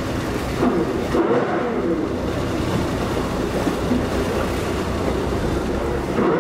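Speedboat's engine running steadily under way, with water rushing along the hull.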